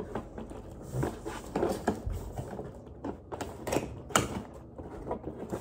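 Scissors cutting at a toy box's plastic ties and tape, with the cardboard and plastic packaging being handled: irregular clicks, snips and crinkles. The scissors are struggling to cut through.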